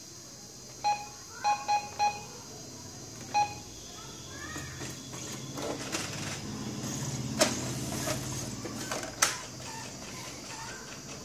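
Brother MFC-J430W inkjet printer's control-panel keys beeping, five short beeps as buttons are pressed, then the printer's mechanism starts up with a low motor hum that rises, with a couple of sharp clicks.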